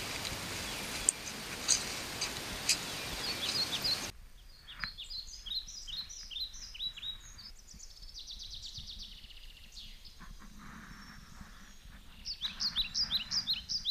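A steady rushing noise for the first four seconds, then a quiet woodland background with small birds chirping in quick runs of short, falling notes, busiest just after the change and again near the end.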